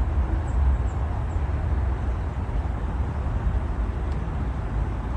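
River water flowing steadily, an even rushing, under a low, unsteady rumble.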